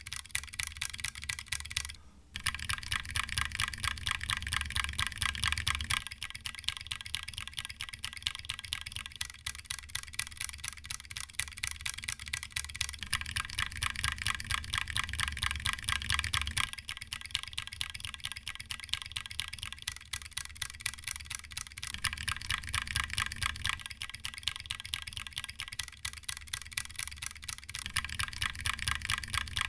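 Rapid, continuous typing on a mechanical keyboard fitted with Cherry MX Black Hyperglide linear switches. The clacking changes character every few seconds as recordings of stock, lubed-and-filmed, and spring-swapped switches alternate.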